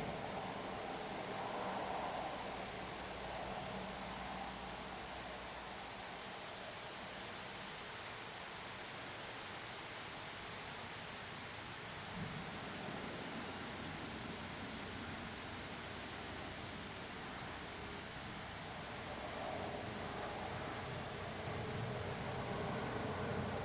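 Steady rain falling, an even hiss. A faint low rumble swells near the start and again near the end.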